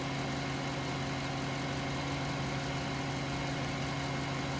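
Car engine running at a steady, unchanging hum, heard from inside the cabin.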